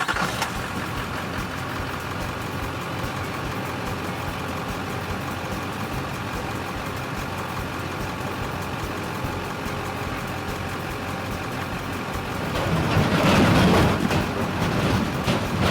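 A heavy road vehicle's engine running steadily, growing louder for a couple of seconds near the end.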